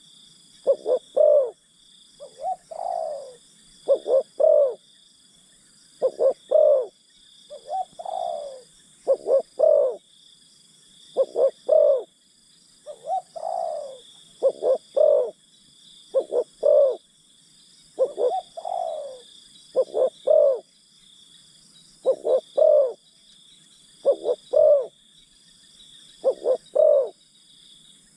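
Spotted doves cooing: repeated phrases of two or three low coos about every one and a half to two seconds, some ending in a longer, falling note.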